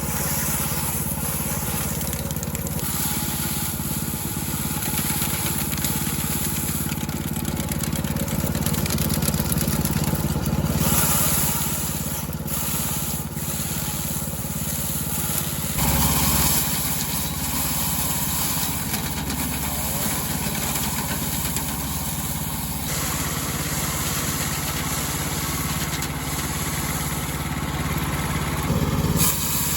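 A small engine running steadily, its sound changing about sixteen seconds in.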